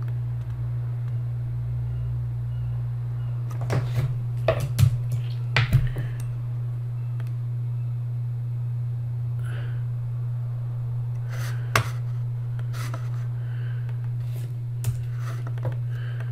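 Steady low hum with scattered sharp clicks of a computer mouse: a cluster of several about four to six seconds in, then a few single clicks later.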